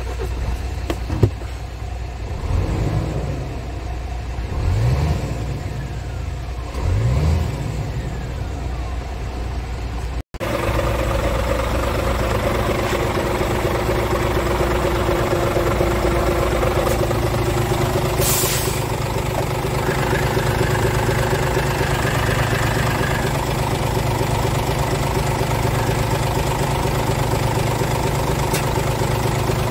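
Scania G500 truck's diesel engine idling, with three brief revs in the first few seconds. After a cut the engine is heard louder and steady at the open front hatch, with a short burst of air hiss about two-thirds of the way through.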